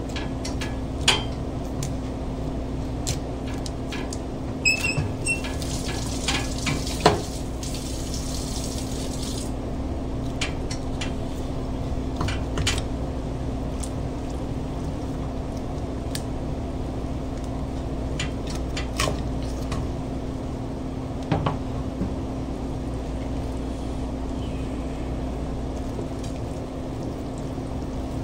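Knife and fish knocking and clicking on a plastic cutting board as a sea bream is cut open and gutted, over a steady kitchen hum. A steady hiss runs for a few seconds about six seconds in.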